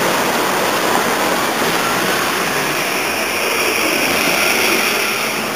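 Street traffic noise with wind on the microphone. A C-class low-floor tram passes close by in the second half, adding a high whine.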